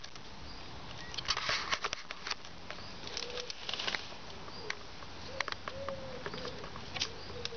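A pigeon cooing faintly, a run of short low coos starting about five seconds in, under short rustles and scuffs close by, loudest in the first four seconds.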